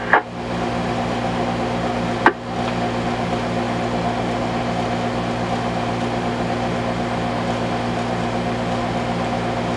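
A 2-metre amateur radio's speaker giving out a steady hum and hiss with no voice, as if a station is keyed up on the repeater without speaking. There is a sharp click a little over two seconds in, and the hum goes on after it.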